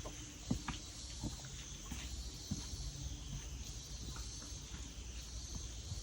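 Footsteps on a hiking trail: short, irregular soft thuds, more frequent in the first couple of seconds, over a steady high hiss.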